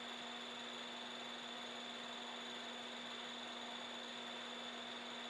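Steady electrical hum with a thin high whine over even hiss: the recording's background noise, with nothing else heard.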